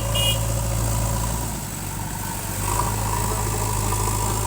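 Diesel engine of heavy earthmoving machinery running steadily, dropping off about a second and a half in and picking up again around the three-second mark.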